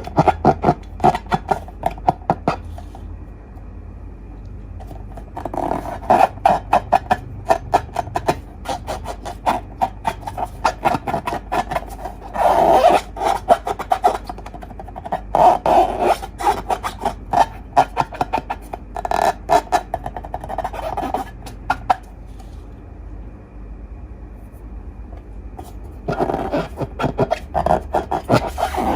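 Slime being squeezed and worked by hand, giving runs of rapid crackling clicks in bursts of a few seconds, with quieter spells in between.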